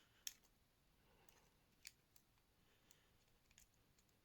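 Faint, irregular clicks of a lock pick and tension wrench working in a padlock's keyway, a handful of sharp ticks with the loudest about a quarter second in.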